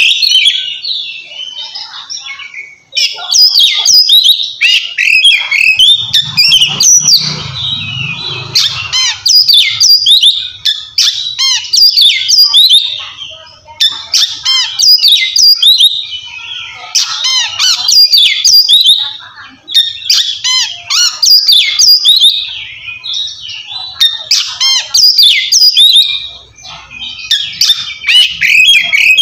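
Oriental magpie-robin (kacer) singing loudly in the 'ngeplong' style, with rapid, varied whistles and chirps delivered in long bursts separated by brief pauses.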